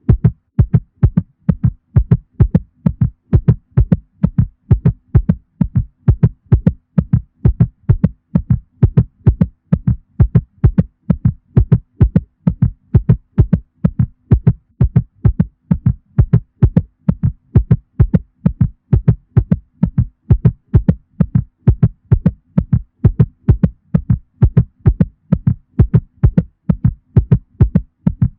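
Heartbeat sound effect, billed as a mother cat's heartbeat: low, muffled thumps in pairs, repeating at an even pace without a break.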